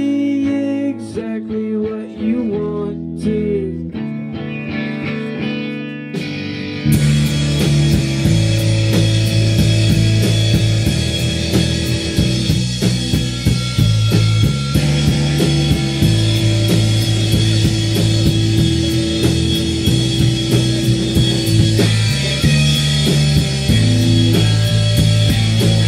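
Live rock band playing in a small room. A quieter electric guitar passage gives way about seven seconds in to the full band, with drums and bass coming in loud.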